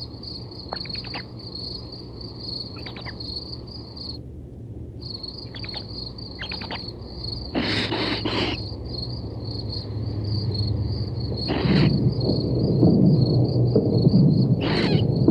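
Crickets chirping steadily, with a low rumbling noise that swells and grows louder from about two-thirds of the way in.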